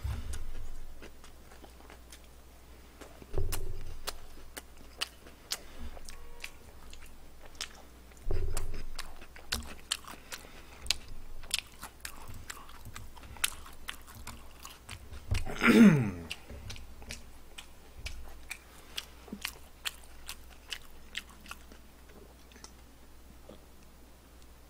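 Close-miked chewing and crunching of crispy fried chicken, with many sharp crackles and a few soft low thumps. About two-thirds through, a short falling voice sound rises above the chewing.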